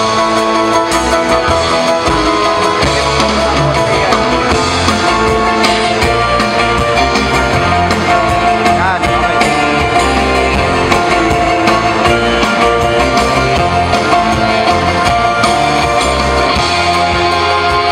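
Loud recorded music with guitar and a steady beat, played over stage speakers.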